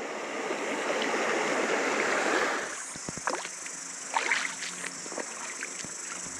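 Shallow stream water rushing and swishing for about two and a half seconds, then dropping away suddenly to a quieter murmur of water with a few scattered light clicks and knocks.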